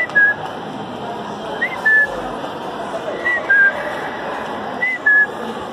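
A short two-note whistle, a quick rising note followed by a lower held one, repeating about every second and a half over the steady hubbub of a busy shopping mall.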